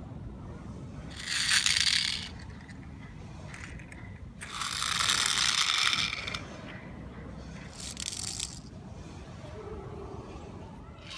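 Small die-cast toy cars rolled by hand over rough sandstone, their little wheels rattling and grinding against the stone in three bursts, the middle one about two seconds long.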